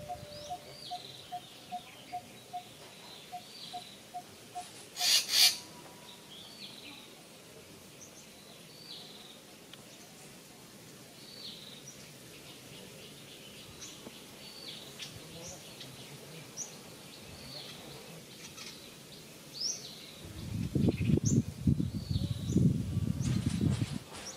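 Birds chirping outdoors, with short high calls scattered throughout. A run of evenly spaced pips, about three a second, goes on for the first five seconds; a brief loud noise comes about five seconds in, and a loud low rumbling noise fills the last few seconds.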